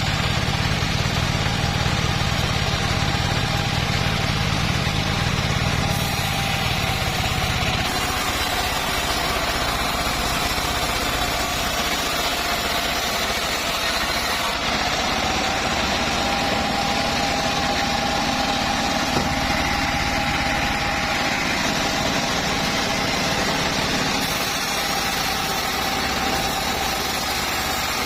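Home-built bandsaw mill running steadily, with a whine that wavers slightly in pitch. A deep low hum drops away about eight seconds in.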